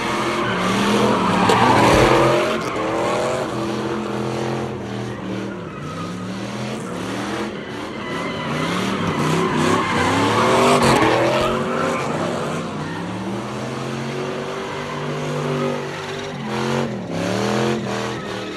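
Cars doing donuts: engines revving up and down over and over while the tires squeal and skid on the pavement. The squealing is loudest about two seconds in and again around eleven seconds.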